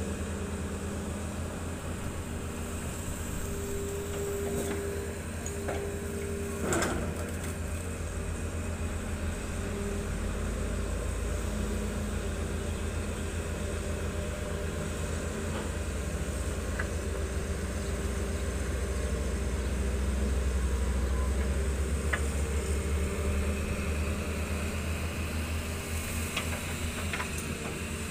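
Hitachi ZX200 hydraulic excavator's diesel engine running as the machine works, a steady low rumble that grows louder through the middle, with a single knock about seven seconds in.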